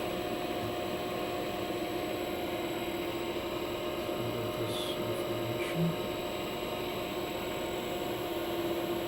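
Electric motor running steadily at high speed on a freshly repaired Siemens MicroMaster 440 variable-frequency drive during its test run: a steady hum with a hiss over it.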